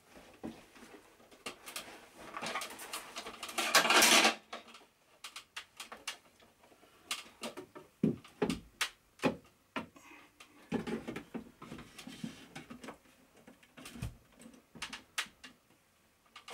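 A flat-screen TV being handled and set in place on its shelf. A louder scraping rustle comes about four seconds in, then scattered knocks and clicks of hard objects.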